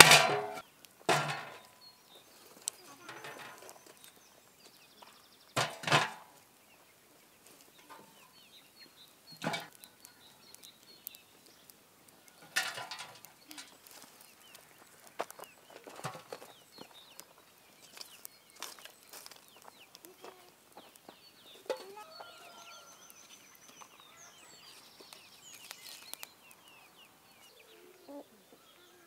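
Chickens clucking: several short, loud calls a few seconds apart, with faint small-bird chirping between them.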